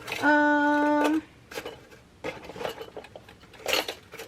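A single steady held note, about a second long, near the start. Then the light clinking and clattering of spools of jewelry wire and small metal items being rummaged through.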